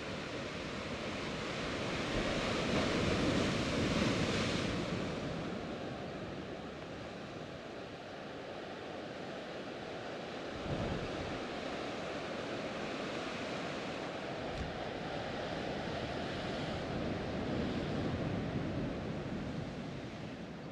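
Ocean surf washing against a rocky shore, a steady rushing that swells and fades, with a sharper surge about halfway through.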